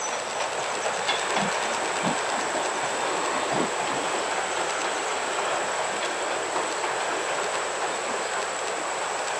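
Passenger coaches of a steam-hauled train rolling across a railway bridge: a steady rolling rush of wheels on rail with a few low knocks.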